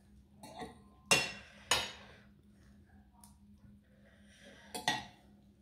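Metal fork and spoon clinking against a ceramic plate while twirling noodles. There are two sharp clinks about a second in, about half a second apart, and another quick pair near the end.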